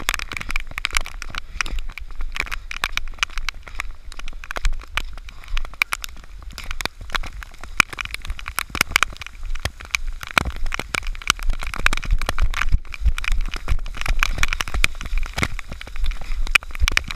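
Raindrops tapping on the camera's housing in a dense, irregular crackle, over a steady low rumble.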